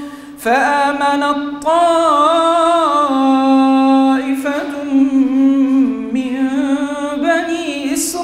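An imam's melodic Quran recitation into a microphone: one male voice in long held notes that waver up and down, with a short breath pause near the start.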